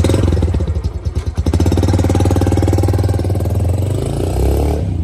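Yamaha YBR's single-cylinder engine running at idle just after a start, a loud, rapid, even exhaust beat through an aftermarket silencer.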